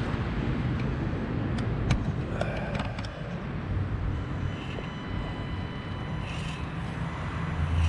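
Small electric motor and gearing of a 1/24-scale SCX24 rock crawler whining faintly in two spells as it crawls over rock, with a few light ticks of tires and plastic on stone over a steady low outdoor rumble.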